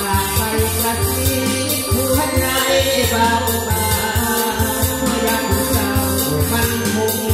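Live band music: a man sings a luk thung song into a microphone over an electronic keyboard and a steady drum beat.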